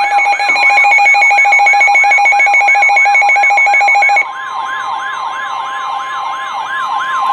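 Electronic siren sweeping rapidly upward over and over, about three times a second, layered with a fast-pulsing electronic alarm tone. About four seconds in, the pulsing alarm cuts off and a steady single tone carries on under the siren.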